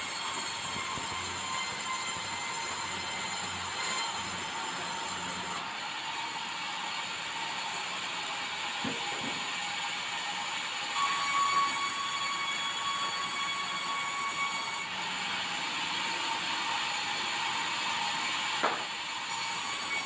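Sawmill band saw cutting a bengkirai hardwood plank lengthwise: a steady high-pitched whine and hiss from the blade in the wood, growing duller and brighter a few times as the cut goes on. There is one short sharp tick near the end.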